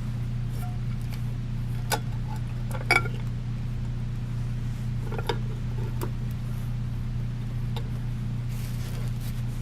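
A few sharp small clicks and clinks of ceiling-fan parts and screws being handled and fitted, the loudest about three seconds in, over a steady low hum.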